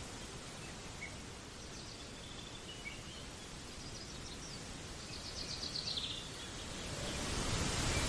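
Woodland ambience: a steady rushing background noise with a few faint bird chirps and a short, rapid bird trill past the middle. The rushing grows louder near the end.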